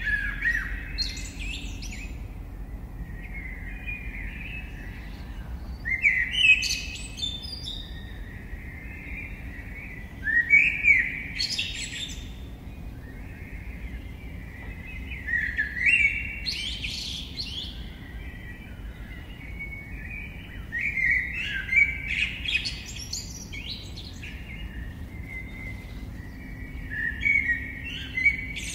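A songbird singing the same short phrase about every five seconds. Each phrase lasts around two seconds and ends in a loud high flourish, with fainter chirps from other birds in between.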